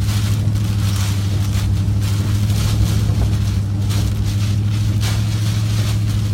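Hurricane-force wind blowing in gusts that swell and fade every second or so, with a steady low rumble underneath.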